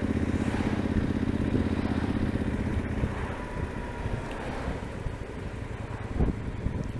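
Yamaha Super Ténéré XT1200ZE parallel-twin engine heard through a newly fitted Delkevic 343 mm carbon-tipped oval silencer, running at steady revs. About three seconds in, the engine note falls quieter and less even.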